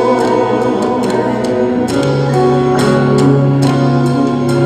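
Worship song music between sung lines: held chords over a low sustained bass note, with a steady light ticking beat on top.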